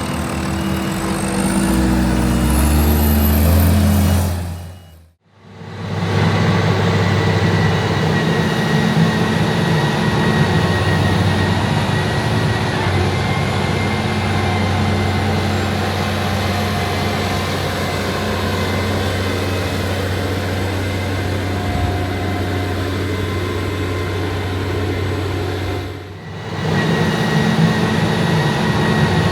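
Heavy diesel harvest machinery running. The engine pitch climbs over the first few seconds, then the sound fades out briefly about five seconds in. After that the machinery runs steadily under a thin high whine, with another short dip near the end.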